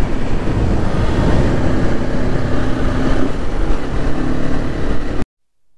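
Motorcycle ride at speed: heavy wind rush over the microphone with the Honda CBR250R's engine drone underneath. The sound cuts off suddenly about five seconds in.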